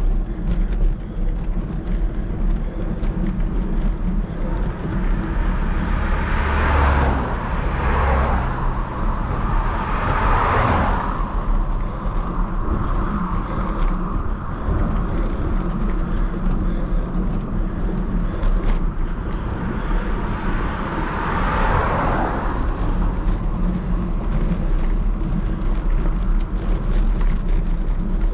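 Steady wind rumble and road noise on the microphone of a camera carried by a cyclist riding a climb. Three louder swells rise and fade over a second or two each, about six, ten and twenty-one seconds in.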